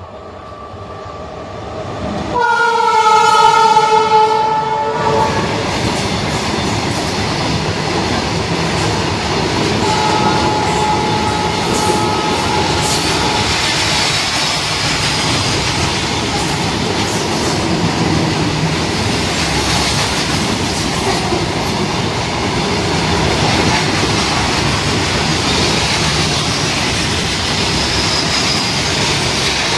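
A train's locomotive horn sounds one long blast of about three seconds, a couple of seconds in, as the train comes closer. The steady noise of the train running past follows to the end, with a second, fainter horn note about ten seconds in.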